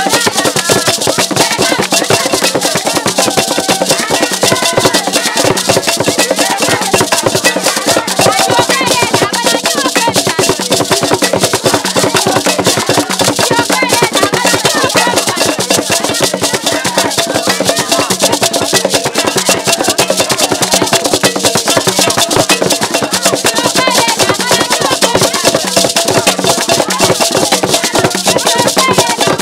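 Ewe traditional drum ensemble playing: painted barrel drums struck with sticks in a dense, fast, unbroken rhythm, with voices singing along.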